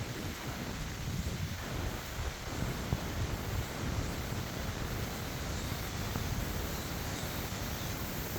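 Wind buffeting the microphone in a fluttering low rumble, over a steady hiss of rain.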